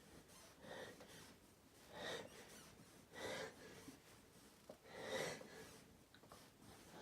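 A person taking quiet, gasping breaths, four of them a second or two apart: the catching inhales that build up to a sneeze.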